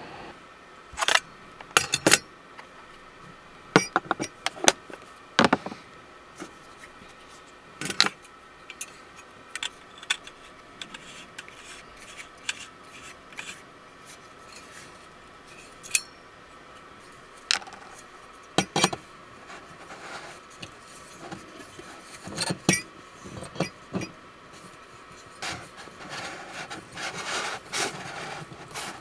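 Irregular clicks and clinks of small hard objects being handled, some with a light rubbing or scraping, a denser run of them near the end.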